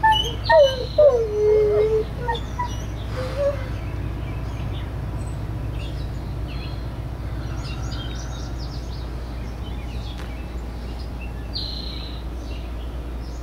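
Golden retriever–Great Pyrenees mix dog howling. The howl wavers in pitch, then settles on a long low note and stops about two seconds in, with one short howl a second later. After that, faint bird chirps sound over a steady low rumble.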